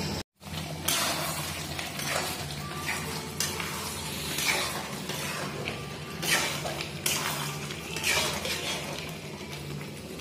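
Ladle stirring and scraping chicken and masala around a kadai in irregular strokes, with the masala sizzling as it fries.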